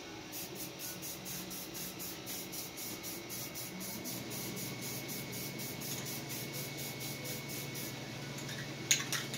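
Aerosol spray-paint can hissing in quick, even pulses, about three or four a second. Two sharp clicks come near the end.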